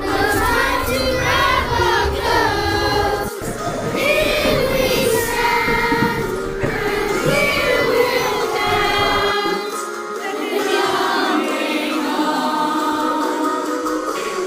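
Several voices singing together over backing music.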